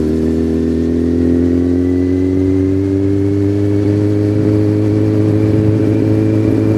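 Motorcycle engine running under steady throttle on the road, its pitch climbing slowly as it gathers speed.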